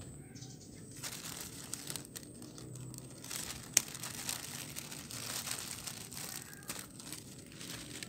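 A plastic fruit-protection bag crinkling and rustling as it is cut open with scissors and pulled off a star fruit, with one sharp snip about four seconds in.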